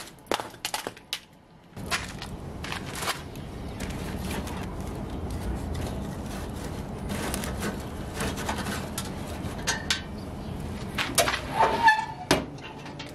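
An axe splitting a hardwood log with a few sharp cracks in the first second or so, then a wood fire crackling in an offset smoker's firebox over a steady rush. Near the end comes a short metallic squeal as the firebox door is worked.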